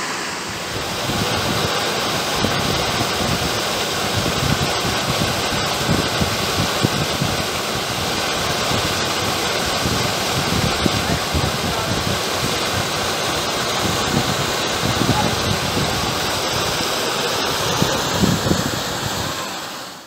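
Mountain stream cascading over boulders in a small waterfall: a steady rush and splash of water that fades out at the very end.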